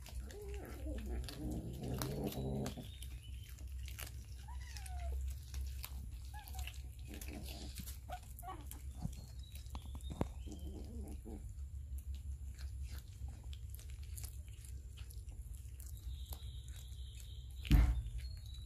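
Cats chewing and tearing at raw fish, with many short wet clicks of biting and chewing, a low cat growl over the first few seconds and a few short cries in the middle. One loud knock near the end.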